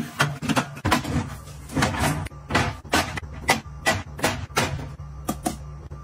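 Aluminium drink cans clicking onto a plastic under-shelf can holder and small plastic drink bottles being set down in a clear acrylic fridge bin: a quick run of light clacks and taps, several a second.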